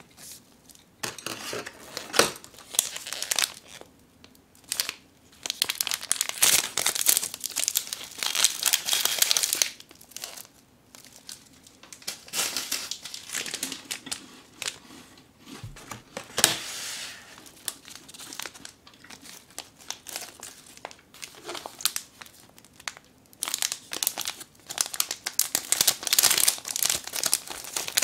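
Plastic snack wrappers, an Umaibo stick and a sauce senbei packet, crinkling as they are handled, in irregular bursts with a quieter few seconds around the middle.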